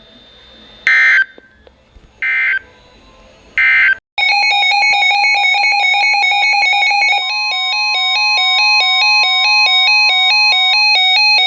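Three short screeching bursts of Emergency Alert System digital data tones, then, about four seconds in, a loud electronic alert tone that warbles rapidly between pitches and keeps going.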